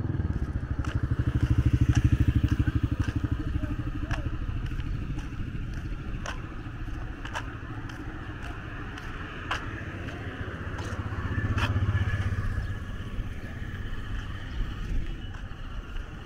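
Street traffic: vehicle engines passing, one swelling past about two seconds in and another around twelve seconds, with light clicks about once a second.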